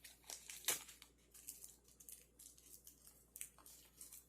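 Toy blind-bag packaging crinkling and tearing as it is handled and opened, in short irregular crackles with a sharper one about a second in.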